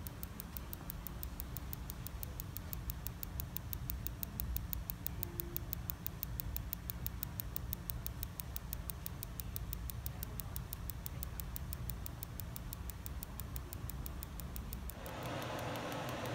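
PiezoWave Vet shockwave therapy handpiece firing rapid, even clicks, about eight a second, pressed through gel against a dog's hind leg, over a low rumble. About fifteen seconds in the clicking stops and a louder hiss takes over.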